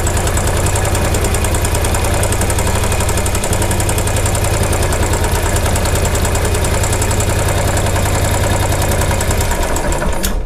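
Royal Enfield Bullet 500 EFI's single-cylinder engine idling steadily with an even beat, then cutting off abruptly near the end.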